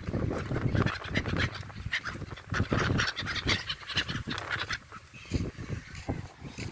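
A flock of seabirds calling over one another as they gather to be fed bread. The calls are densest through the middle and thin out near the end.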